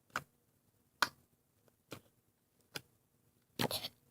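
Homemade glue-and-borax slime being squished in the hands, making short sharp sticky clicks about once a second, then a quick cluster of crackles near the end.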